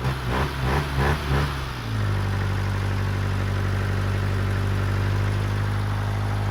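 Car engine running on test after a tappet (valve clearance) adjustment. It is uneven for about the first two seconds, then settles into a steady idle.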